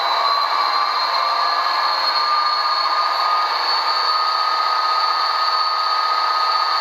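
A model locomotive sound decoder (SoundTraxx Tsunami 2) playing an SDF40-2's diesel prime mover at full throttle, run 8, through the model's small speakers: a steady loud engine drone with a turbocharger whine that climbs slightly in the first few seconds, then holds.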